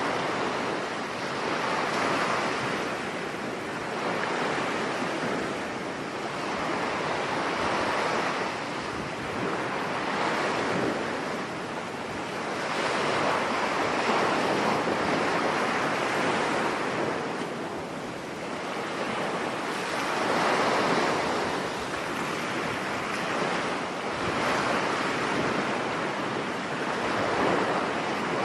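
Storm surf breaking on a beach, the waves surging and easing every few seconds under a steady wind.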